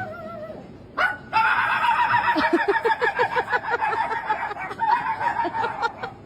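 Dog-like yipping and whining: a brief call, then from about a second in a sustained run of rapid yips.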